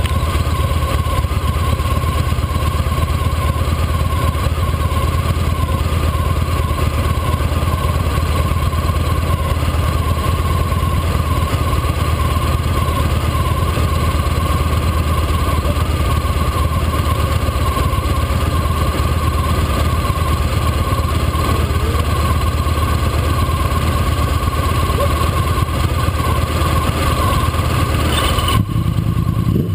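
Motorcycle engine idling steadily. About a second before the end the higher part of the sound drops away abruptly, leaving the low hum.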